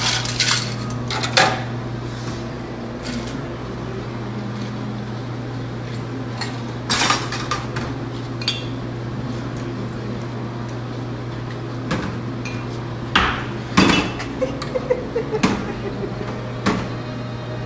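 Glassware, bottles and ice clinking and knocking against a stainless steel bar as a cocktail is put together: a scattering of separate sharp knocks, bunched near the middle and toward the end, over a steady low hum.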